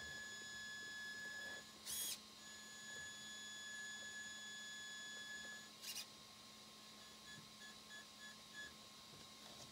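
Traxxas 4Tec 2.0 Ford GT RC car's electric motor and speed controller giving a faint, steady high-pitched whine as it creeps in low-speed manoeuvring, broken twice by a short scratchy noise. Near the end the whine comes as about six short blips while the throttle is tapped.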